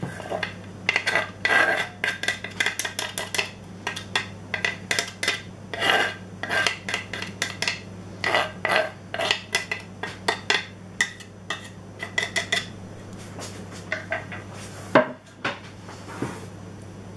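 Diced onion being scraped off a tilted wooden cutting board into a glass bowl: a quick, uneven run of scrapes and taps, then one louder knock about fifteen seconds in.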